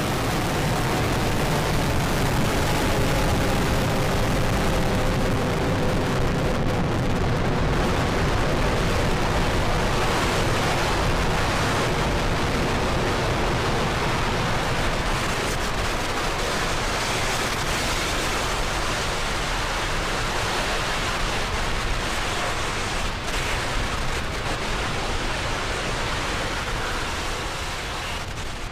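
Falcon 9 Block 5 rocket's nine first-stage Merlin engines burning in the climb shortly after liftoff: a loud, steady rush of noise that fades slightly near the end.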